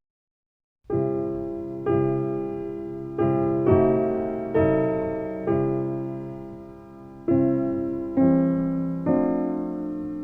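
Slow, gentle piano music playing chords, starting about a second in, each chord struck and left to fade.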